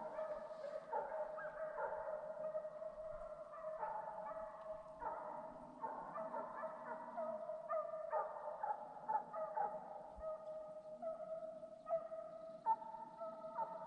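A pack of deer hounds baying in chorus while running a deer: many overlapping, drawn-out calls that keep on without a break.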